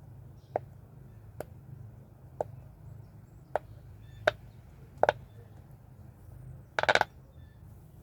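Silicone bubbles of a push-pop fidget ball being pressed in one at a time: six sharp pops about a second apart, then a quick run of several pops near the end.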